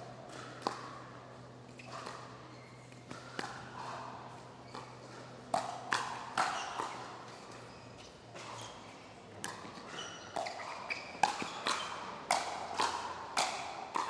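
Pickleball rally: sharp pops of paddles striking the plastic ball, a few seconds apart at first, then quickening to about two hits a second in the last few seconds.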